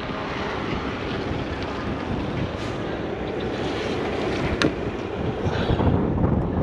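Heavy diesel engine of a Striker airport crash fire truck running as the truck drives down off a lowboy trailer deck, with wind on the microphone. A single sharp knock about four and a half seconds in.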